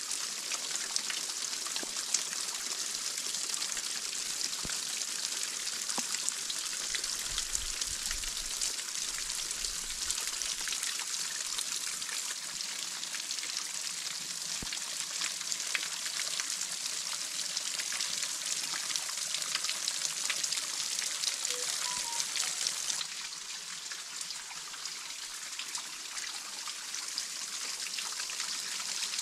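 Small mountain waterfall with little water flowing, trickling and splashing over iced rock: a steady hiss of falling water with fine drips. It drops a little quieter about three-quarters of the way through.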